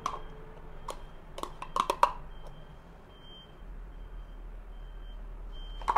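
A spoon knocking and scraping as the last of the yogurt is worked out of a plastic tub into a glass jug: a few sharp taps in the first two seconds, the loudest about two seconds in, and one more near the end.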